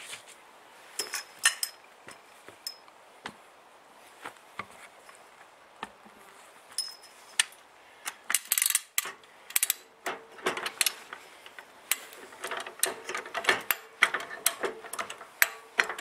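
High-lift jack being worked: sharp metal clicks and clanks of its ratchet mechanism, a few scattered at first, then coming thick and fast through the second half with a faint ringing note near the end, as the jack pushes the bead-breaker plate down onto the tyre bead.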